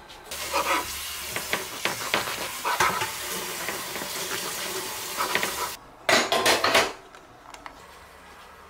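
Serrated bread knife sawing through a crusty baguette on a wooden cutting board, the crust crackling under repeated strokes, starting about a third of a second in. A louder burst of sharp sounds comes around six seconds in.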